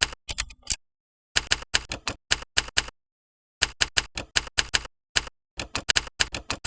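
Typewriter keystroke sound effects played by a PC key-sound program as keys are typed. Quick, irregular runs of sharp key clacks break off for short pauses of under a second, then start again.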